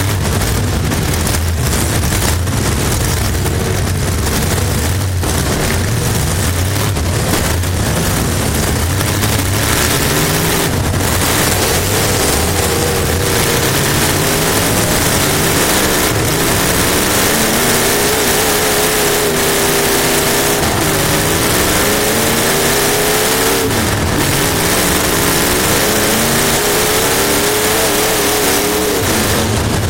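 Race car engine heard from inside the car at racing speed, its pitch rising and falling again and again as the throttle opens and closes, over a heavy rush of wind and road noise.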